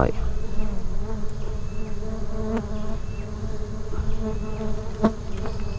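Swarm of bees buzzing steadily around their freshly opened nest. Two faint clicks come about two and a half and five seconds in.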